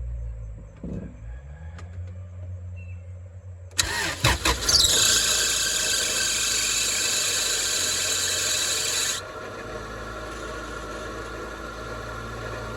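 Acura Integra GSR's four-cylinder engine cranked by its starter for about a second and catching, then running steadily: its first start on the newly installed distributor. A loud high hiss rides over the engine for about four seconds and cuts off suddenly, leaving a steadier, quieter idle.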